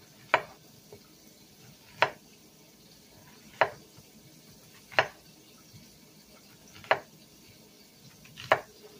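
Kitchen knife chopping through a yellow summer squash onto a wooden cutting board, cutting it into rounds about an inch thick: six sharp chops, roughly one every second and a half.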